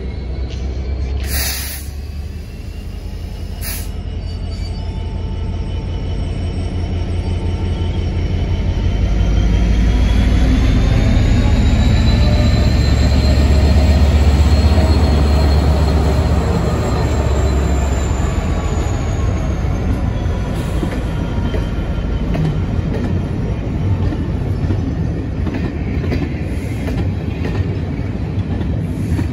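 Diesel locomotive passing with its train: a deep engine rumble builds to its loudest about halfway through and then eases off, while a thin high whine rises and falls in pitch. Two short sharp clicks come in the first few seconds.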